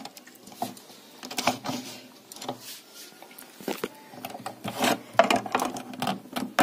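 Metal tools clicking, scraping and rattling against a mixer grinder's heat-softened fibre motor coupler as it is pried off the motor shaft, in irregular clicks and knocks.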